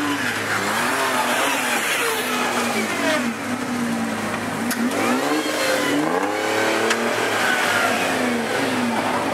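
Hummer H3 engine revving up and down again and again as the SUV is driven off-road at low speed.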